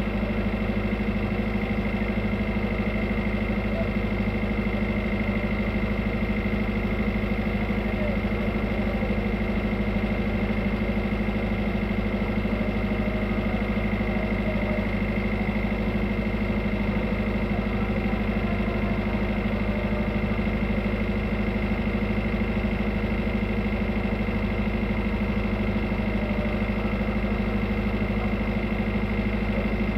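Tugboat's diesel engine running steadily, a constant hum with a fixed pitch and no change in speed.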